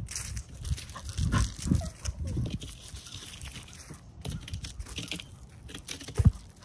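A bully-breed dog moving about on grass scattered with dry leaves, with rustling and crunching underfoot and one sharp thump near the end.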